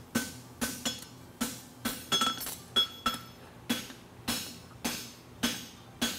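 Hammer blows on steel over an anvil while forging a draft horseshoe from bar stock: about a dozen strikes, roughly two a second, each with a short metallic ring.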